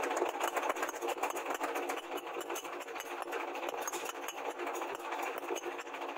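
Rapid metallic clinking and tapping, many light strikes a second, from hand-forging a red-hot steel rebar prong on an anvil.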